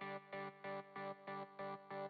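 Quiet background electronic music: a synthesizer chord pulsing evenly, about three pulses a second.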